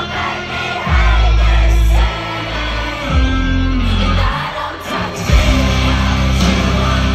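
Live concert music with heavy bass and a singer's voice, loud as heard from the crowd.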